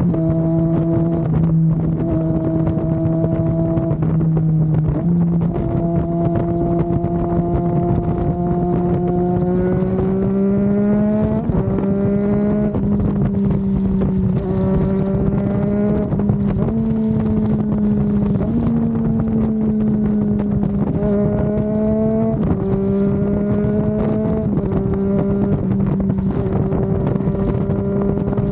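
Triumph Daytona 660's inline three-cylinder engine running under way at steady cruising revs. Its pitch rises gently and settles several times as the throttle changes, with wind rushing over the microphone.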